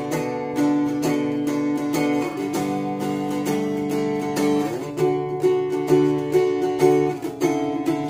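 Epiphone Lil' Tex travel acoustic guitar with a solid spruce top, strummed in a steady rhythm of chords.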